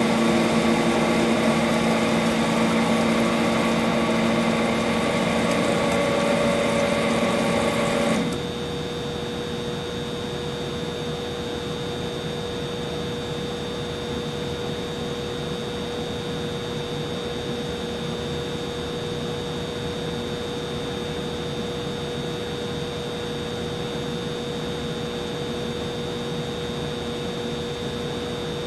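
Humidifier running with a steady motor hum. About eight seconds in, a lower part of the hum stops and the sound drops to a quieter steady hum with a thin high whine.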